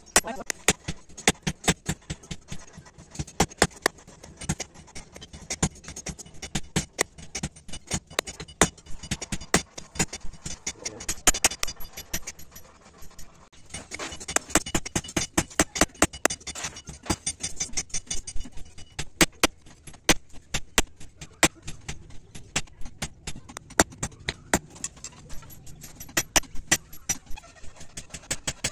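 Hand hammers striking red-hot steel on an anvil while forging an aruval billhook blade. The blows are rapid and irregular, a few a second, each a sharp metallic clank.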